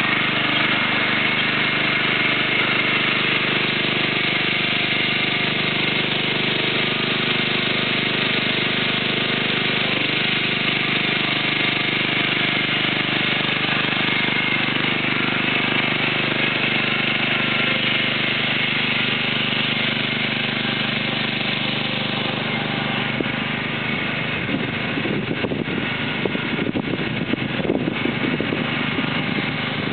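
John Deere riding lawn mower engine running steadily. Late on, the sound turns rougher, with an irregular clatter.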